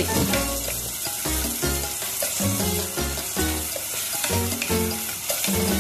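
Tuna, garlic and onion sizzling in hot oil in a non-stick pan while being stirred with a wooden spatula.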